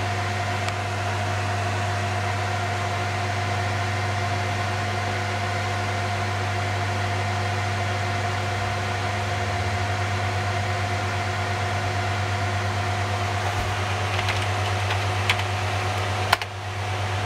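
File server's cooling fans and hard drives running: a steady whir with a constant hum, pretty doggone noisy. A single sharp click about a second before the end.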